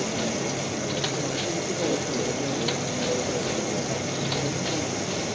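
Busy exhibition-hall ambience: an indistinct murmur of many voices over a steady low hum, with light clicks at irregular intervals.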